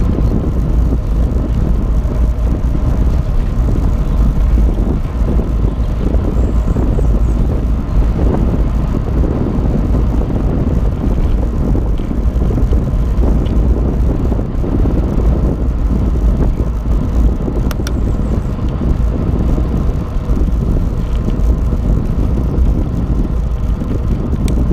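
Steady wind rumble on the microphone of a camera on a moving bicycle, mixed with tyre and road noise.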